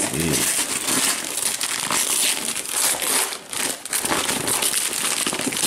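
Gift-wrapping paper being torn off a box and crumpled by hand: a continuous crinkling rustle that rises and falls in loudness.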